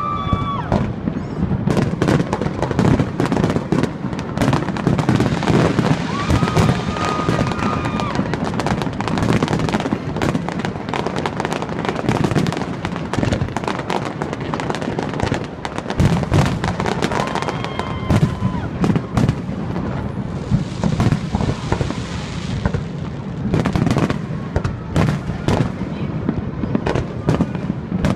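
Fireworks going off in a dense, continuous barrage of overlapping bangs and crackles. A few short, held high tones sound over the top.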